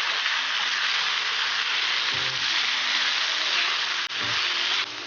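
Potato and pea curry sizzling in a pan as it is mixed, a steady frying hiss that turns quieter near the end. Faint background music runs underneath.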